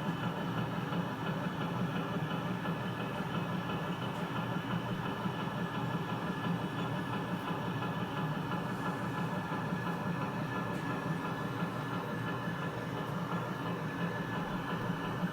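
Washing machine running with a steady mechanical rumble and hum that neither rises nor falls.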